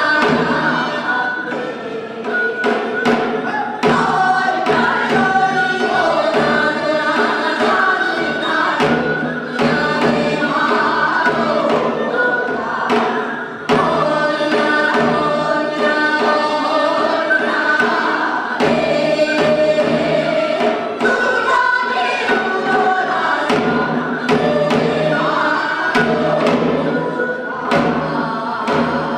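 Group of women singing Korean traditional folk song (sori) together through microphones, backed by traditional Korean drums, including a janggu, striking a steady rhythm.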